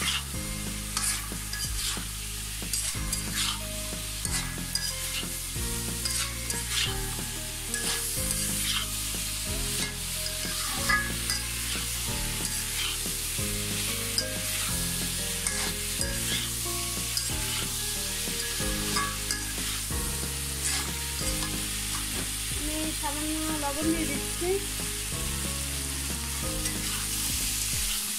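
Fried sweet potato chunks sizzling in oil and spice paste in a metal pan while being stirred and scraped with a spatula, with frequent short scraping clicks. Low steady notes that change every second or two run underneath.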